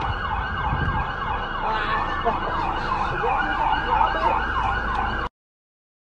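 Police car siren in a fast rising-and-falling yelp, about three sweeps a second. It cuts off abruptly about five seconds in.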